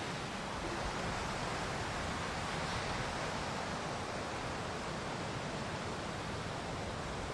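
Surf washing onto a sandy beach: a steady, even rush of noise with no distinct breaks.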